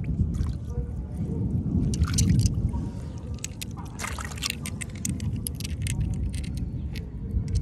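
A hand splashing and trickling in shallow tidal water while picking up blood clams, with short sharp clicks and splashes scattered through, over a steady low rumble.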